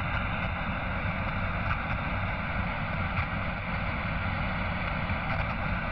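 Steady television static hiss: an even rush of noise with no pitch or rhythm.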